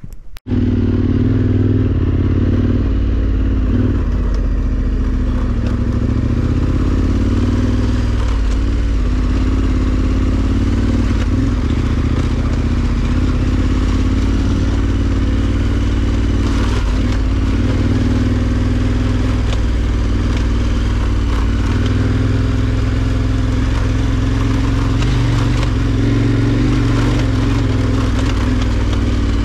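KTM 1290 Super Adventure R's V-twin engine running steadily as the bike is ridden along a dirt trail. Its pitch dips and rises slightly a few times with the throttle, under a steady rushing noise.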